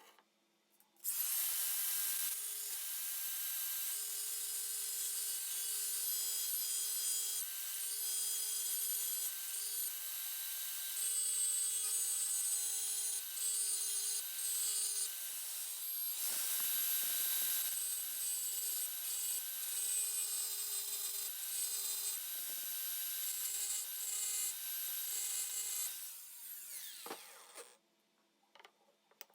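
A small electric power tool runs with a steady whine while it grinds or abrades the metal of an old aluminium-alloy wrench. It starts about a second in and stops near the end.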